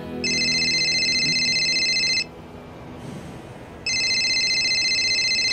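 Mobile phone ringing: two rings of about two seconds each, a steady high electronic tone, with a pause of under two seconds between them.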